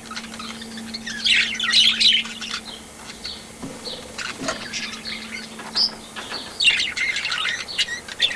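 Small birds chirping: dense bursts of rapid high chirps about a second in and again near the end, with scattered calls in between, over a steady low hum that stops a little after six seconds.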